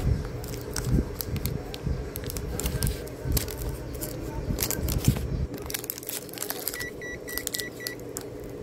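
Rustling handling noise and scattered clicks as a hand works at the bottom edge of an LED TV, over a steady low hum. Near the end come five quick high beeps, all at one pitch.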